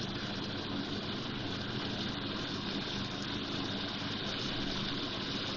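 Chicken pieces sizzling gently in an aluminium pot over a low gas flame, a steady even hiss with a low hum underneath.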